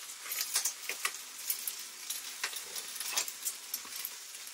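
Red prawns frying in olive oil in a grill pan: a steady sizzle broken by irregular crackling pops.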